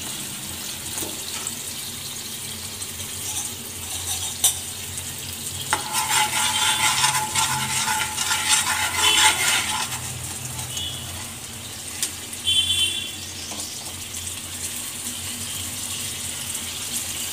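Sauce sizzling in oil in a frying pan while a metal slotted spoon stirs and scrapes it around the pan. The stirring is loudest for a few seconds in the middle.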